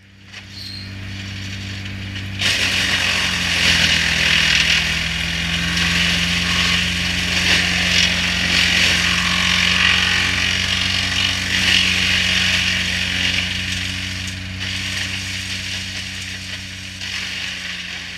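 Woods 8100 PTO-driven wood chipper running on a tractor, the engine's steady hum building up. About two and a half seconds in, the chipper's loud, dense rushing sound comes in and holds, easing a little near the end.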